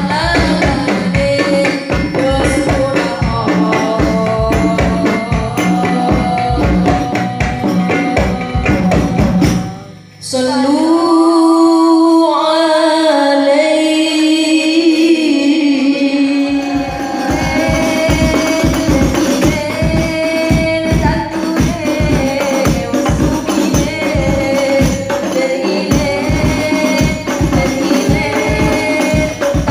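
Women's voices singing sholawat through microphones over a steady rhythm of rebana frame drums. About ten seconds in the drums stop after a short break and a single voice sings alone in long, wavering held notes; the drums come back in about six seconds later.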